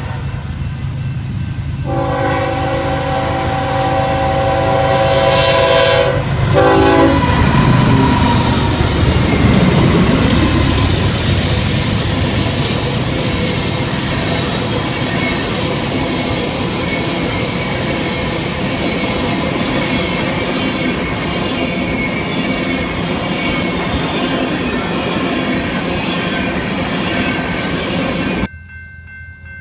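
A Nathan K5HLL air horn on a BNSF ES44C4 leading an oil train sounds long blasts and a short one for a grade crossing. The GE diesel locomotives then pass close by, and a string of tank cars follows, wheels clicking steadily over the rail joints. Near the end the sound cuts to a quieter scene with a few steady high tones.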